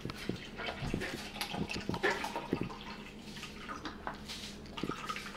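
Water pouring from a plastic water bottle into a plastic shaker cup full of ice.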